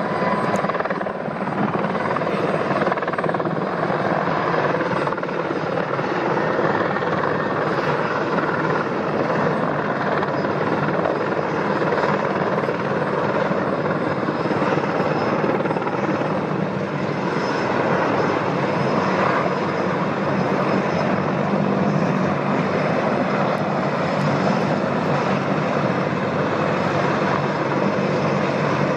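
Mil Mi-26 heavy-lift helicopter flying low overhead, its eight-blade main rotor and twin turboshaft engines making a loud, steady noise.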